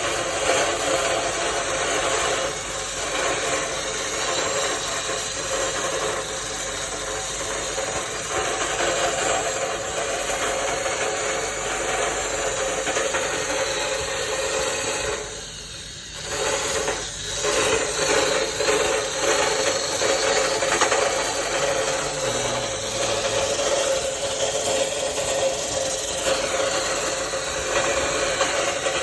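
Electric drill spinning a steel wire brush wheel against metal, a continuous rasping scrub over the steady whine of the motor. It stops briefly about halfway through, then resumes.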